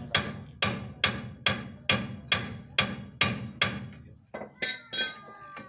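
Hammer striking metal at a steady pace of about two blows a second, each blow ringing; the blows stop about four seconds in. A few lighter metallic clinks follow near the end, one leaving a ring that slides down in pitch as it fades.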